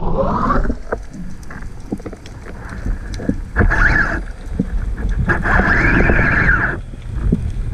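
Water sloshing and rushing around an underwater camera housing, with scattered crackling clicks. Several whistling, hissing sounds come through: a falling one at the start, then longer ones about three and a half and five seconds in.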